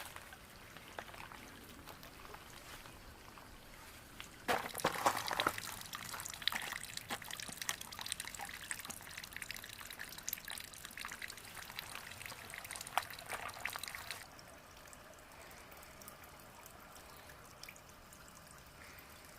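Water pouring and splashing, with many small drips and crackles, starting suddenly about four seconds in and cutting off about ten seconds later. A faint trickle is heard either side of it.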